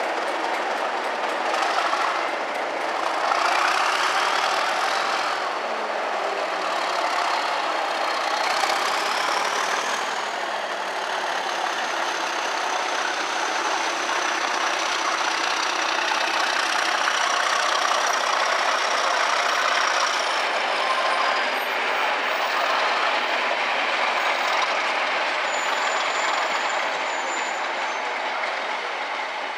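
Slow-moving train with a Class 37 diesel-electric locomotive working, its engine running under power. A high whistle, typical of the Class 37's turbocharger, rises over the first ten seconds or so, then holds and fades out about two-thirds of the way through. The yellow test coaches rumble past on the rails.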